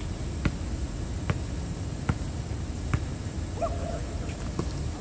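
Basketball being dribbled on an outdoor hard court: four bounces about 0.8 s apart, then the dribbling stops a little after halfway.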